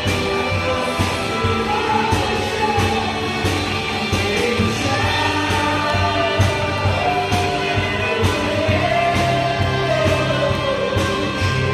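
Live worship band playing: a man sings into a microphone over a drum kit, electric and acoustic guitars and bass guitar, with a steady drum beat.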